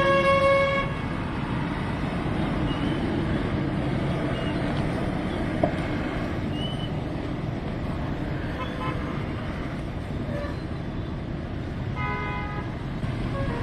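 A vehicle horn sounding briefly at the start, then a steady rumble of road traffic, with a single click midway. More horn-like tones return near the end.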